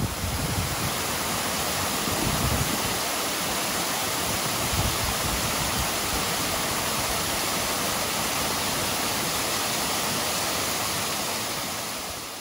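Artificial waterfall: water sheeting down a stepped stone-block wall and splashing over boulders, a steady rushing that fades out near the end.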